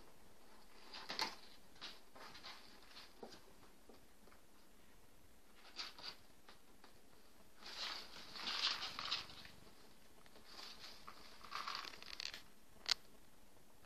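Kittens scrambling about in a cardboard box: claws scratching and scraping on cardboard and rustling paper and cloth in short, irregular bursts, with a longer run of scratching about eight seconds in and one sharp tick near the end.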